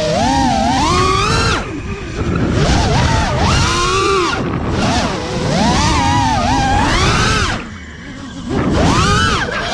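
FPV racing-quadcopter motors and propellers whining, the pitch rising and falling with every throttle change as it flips and dives. The whine drops away briefly on throttle chops about two seconds in and again about eight seconds in.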